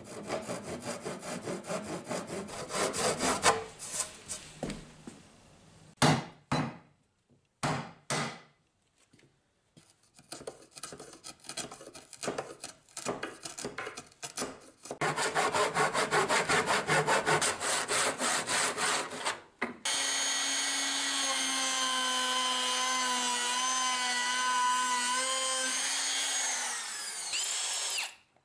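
Hand-sawing wood in rhythmic back-and-forth strokes, broken by a few sharp knocks and lighter chisel work, then more sawing. For the last eight seconds or so a cordless drill runs at a steady pitch and winds down near the end.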